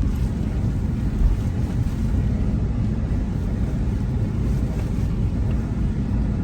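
Steady low rumble of a moving car, engine and tyre noise carried through the vehicle.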